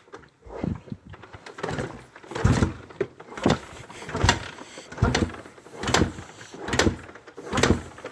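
Honda XR400's air-cooled single-cylinder four-stroke engine being kicked over again and again, nine quick kicks, each turning the engine over with a chuff but never catching into running: a bike that has sat for over a year and won't start, which the owner hears as "wants to do something".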